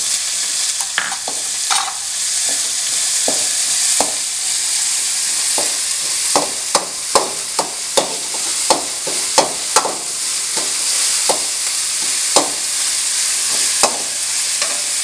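Crushed chilli and spices frying in hot coconut oil with a steady sizzle, while a spatula stirs and knocks against the pan. There is a quick run of knocks between about six and ten seconds in.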